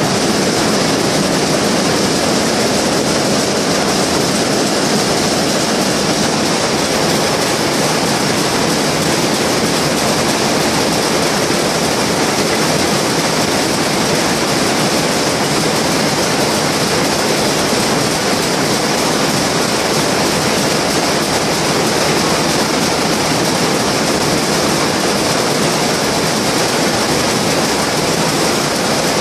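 Shuttleless weaving looms running steadily while weaving towel cloth: a loud, dense, unbroken mechanical clatter.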